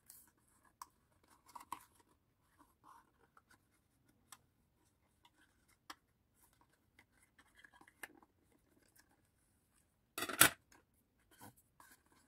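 Faint scattered rustles and small clicks of a folded card box being handled and pressed in the hands, with one louder, brief scrape of card about ten seconds in.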